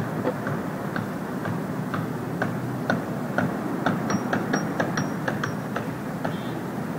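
Steady rumble of heavy engines and street traffic, with a regular sharp ticking on top, about two ticks a second, quickening to about four a second around four seconds in.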